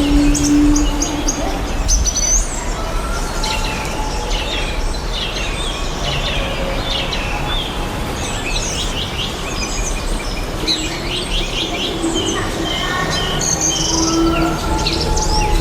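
Many small birds chirping and trilling together, with short repeated calls throughout, over a steady low rumble.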